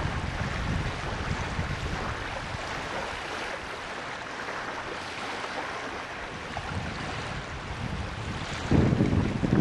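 Wind buffeting the microphone over a steady hiss of wind and choppy lake water; the low rumble of the buffeting eases off mid-way and comes back heavily near the end.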